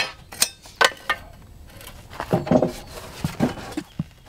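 Steel scaffold trestles being set up and wooden planks laid across them: a few sharp knocks in the first second or so, then a series of duller knocks and bumps from about two seconds in.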